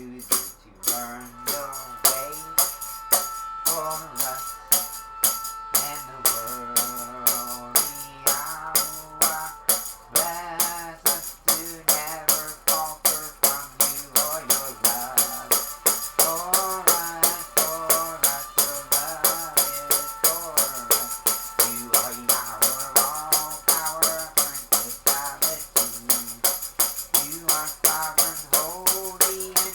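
Music carried by a tambourine struck in a steady beat, about two strokes a second, under a wavering melodic line with a few held notes.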